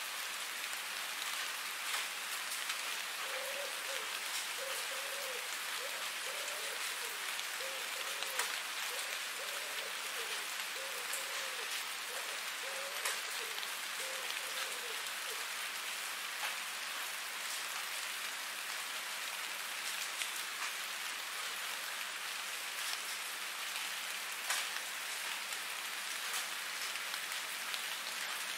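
Steady rain falling as an even hiss, with scattered sharper clicks of individual drops. A faint, short wavering sound repeats about once a second for roughly twelve seconds in the first half.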